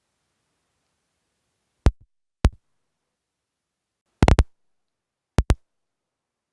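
Short, sharp knocks or clicks over dead silence: one, then another, then a quick run of three, then a quick pair.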